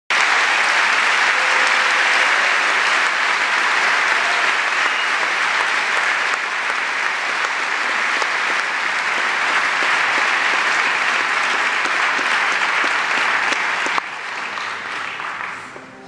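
Concert audience applauding, a dense, steady clapping that drops sharply about fourteen seconds in and then dies away.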